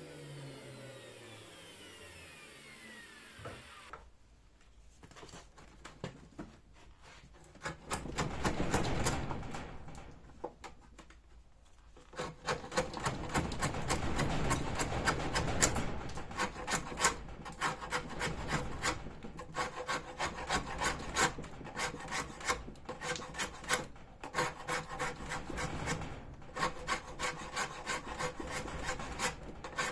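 Bandsaw mill's engine winding down to a stop over the first few seconds. Then a long run of wood scraping and rubbing, with many quick clatters, from about twelve seconds in.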